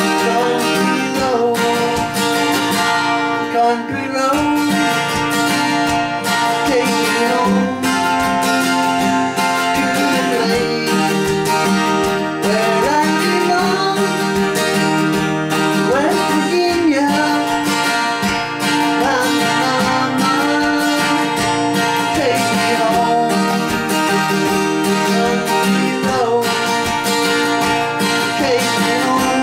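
A man singing while strumming a twelve-string acoustic guitar.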